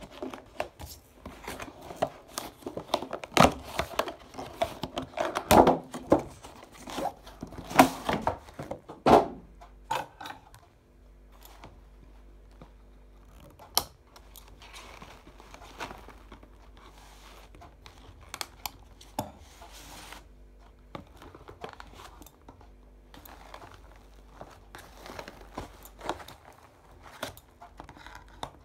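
Cardboard doll box and its clear plastic window being handled and pulled apart, crinkling and crackling. The crackling is dense for about the first ten seconds, then turns into sparser clicks and crinkles.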